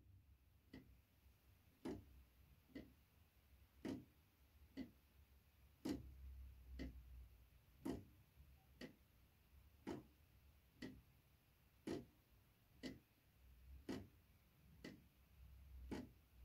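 Faint ticking of a 3D-printed plastic pendulum clock's escapement, about one tick a second, every other tick louder.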